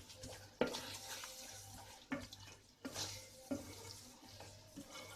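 A spatula stirring onions and mint leaves frying in a pan, with a faint sizzle and five sharp knocks of the spatula against the pan.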